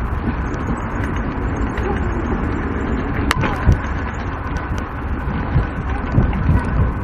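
Mountain bike rolling along a dirt singletrack: the tyres rumble and crackle over the trail, with steady wind noise on the action camera's microphone and one sharp click about three seconds in.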